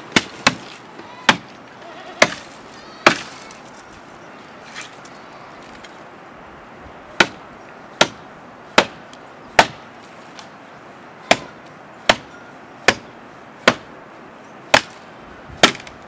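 A short hand blade chopping into the base of a thin tree trunk: single sharp chops, about one every 0.8 s, in runs broken by a pause of about four seconds.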